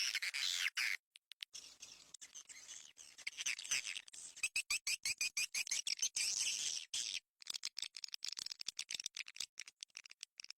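Recorded edible-nest swiftlet calls: dense, high-pitched twittering chirps and trills mixed with stretches of fast clicking. This is a swiftlet call track (suara panggil walet) played to lure swiftlets into a nesting house.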